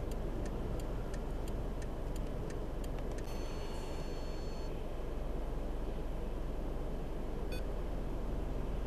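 Steady vehicle noise with a flasher relay clicking about twice a second for the first three seconds, then an electronic beep lasting about a second and a half. A single click comes near the end.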